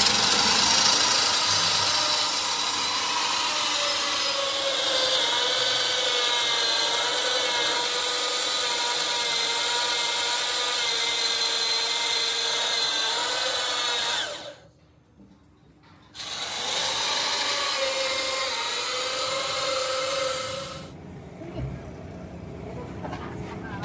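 An electric power tool running under load, its whine wavering slightly in pitch. It stops for about two seconds past the middle, runs again for about five seconds, then cuts out near the end.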